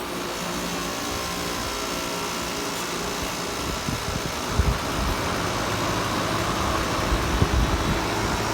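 Carrier Comfort four-ton heat pump outdoor unit starting up: compressor and condenser fan running with a steady hum made of several steady tones, growing gradually louder as it comes up to speed. A few brief low thumps partway through.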